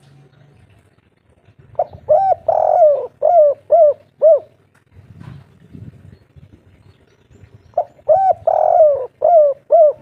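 Spotted dove cooing, two phrases about six seconds apart, the first about two seconds in. Each phrase is two short notes, a longer held coo, then three short clipped notes at the end, the three-note ending that keepers call "kuk 3".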